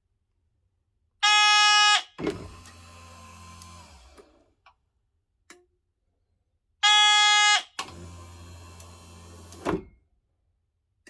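Camper van's electric automatic door cycling twice: each time a loud steady warning beep of just under a second, then the door motor runs for about two seconds and stops with a thunk. The second cycle starts about five and a half seconds after the first.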